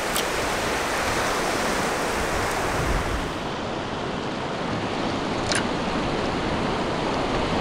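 Steady rush of small surf waves washing up on a sandy beach, with two short ticks, one just after the start and another about five and a half seconds in.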